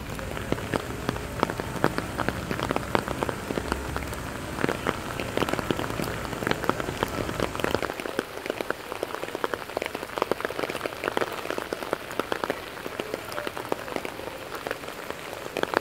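Steady rain, a dense patter of many sharp individual drop hits over a hiss of falling rain. A low rumble under it fades out about halfway through.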